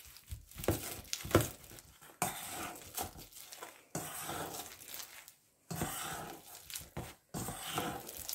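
Metal potato masher pressing through soft cheese and onion in a stainless steel bowl, squishing and clinking against the bowl. It goes in a series of strokes, about one every second and a half, with sharper clinks in the first two seconds.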